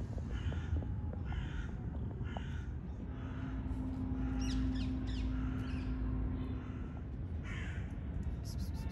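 A crow cawing: three harsh caws about a second apart, then another near the end. A few high chirps come in the middle, and a steady low hum runs for a few seconds, over a constant low background rumble.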